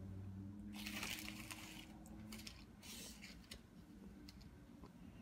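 Faint handling noise from small plastic doll parts and foil wrapper: two short rustles, about a second in and about three seconds in, with a few light ticks. A low steady hum sounds through the first half.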